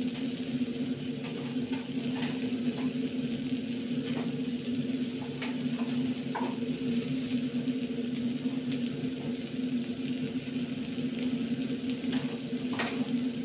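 Pot of chiles heating on a lit gas burner: a steady low hum with scattered light ticks.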